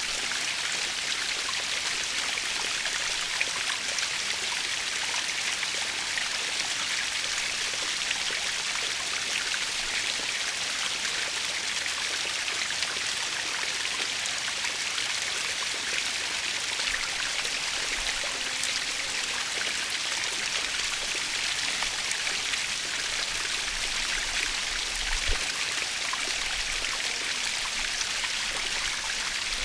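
Small waterfall splashing steadily, a constant bright hiss of falling water with little low rumble.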